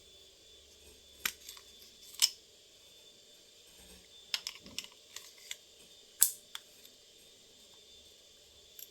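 Short, sharp metallic clicks of a Pardini SP .22 LR target pistol and its magazine being handled: single clicks about one and two seconds in, a quick run of clicks between four and five and a half seconds, and the loudest click just after six seconds.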